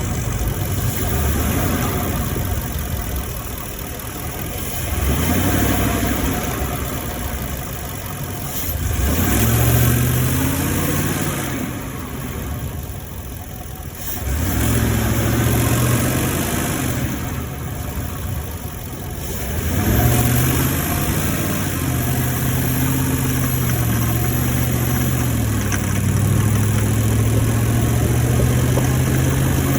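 2018 Ford F-150's 5.0 L V8 engine running while the truck is driven. Its note rises and falls with throttle, eases off twice, then holds steady in the last third. The owner reports this engine as knocking while driving.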